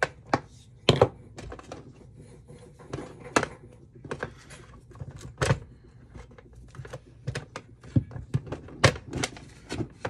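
Irregular sharp clicks and knocks as a plastic rotary phone and its handset are handled on a workbench and side cutters snip through the coiled handset cord, a few louder snaps standing out.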